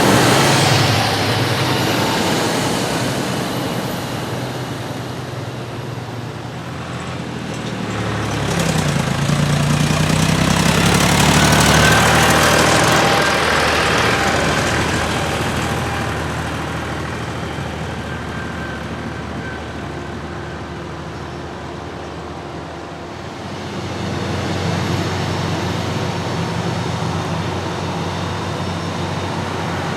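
Diesel engines of large farm tractors and machinery running during a maize silage harvest, one passing close and loudest about a third of the way in, with another swelling up again about three quarters through.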